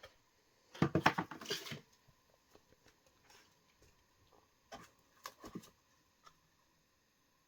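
A cardboard firework selection box being opened: a burst of scraping and rustling about a second in, then scattered faint rustles and taps as the contents are handled.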